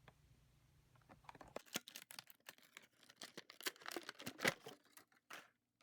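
Faint rustling and crinkling of toy packaging being handled, with many small clicks, starting about a second and a half in.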